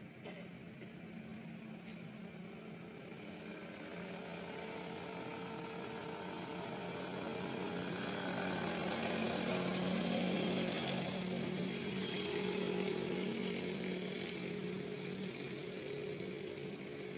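A small engine droning steadily, growing louder to a peak about ten seconds in and then fading somewhat.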